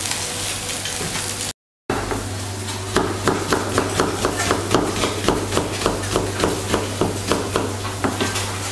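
Fish fillets sizzling in a cast-iron grill pan over a gas flame. This breaks off in a moment of silence, and then a knife slices through a red onion onto a cutting board in quick regular taps, about four a second, over a steady low hum.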